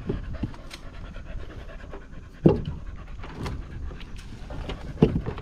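A dog panting in quick, steady breaths, broken by sharp knocks: one about halfway through and two close together near the end.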